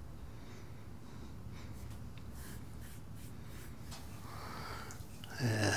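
A man's faint breathing with small rustles in a quiet small room, then a heavy voiced sigh near the end.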